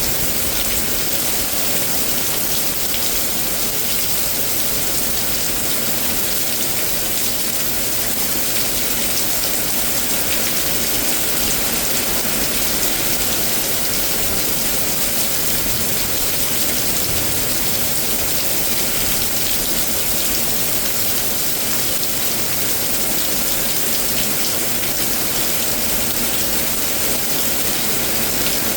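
Steady rain from a severe thunderstorm, an even hiss that holds at the same level throughout.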